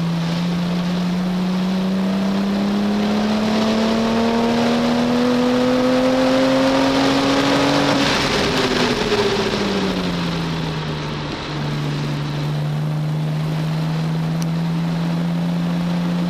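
A car's engine heard from inside the cabin, pulling steadily with its pitch climbing for about eight seconds, then dropping over a couple of seconds and holding level, with wind and tyre noise under it.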